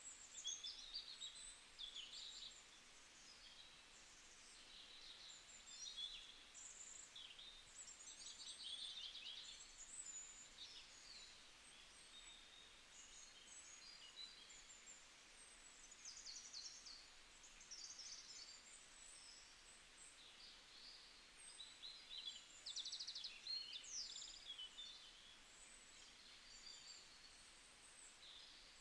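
Faint chirping and twittering of birds: many short high calls and quick trills, over a light hiss.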